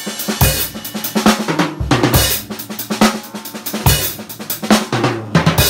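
Acoustic drum kit being played: a busy run of snare, tom and bass drum hits with crash and hi-hat cymbals ringing over them.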